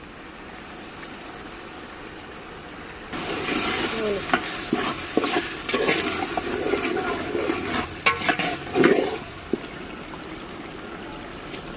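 Onions, ginger and green chillies frying in oil in a pot, with a spoon stirring and scraping against the metal. A low, steady sizzle gets louder with clicking and scraping from about three seconds in, and eases off again near the end.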